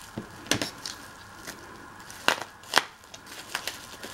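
Plastic wrapping around a figurine's head crackling as it is unwrapped: a few sharp crackles, the loudest about half a second in and twice more between two and three seconds in.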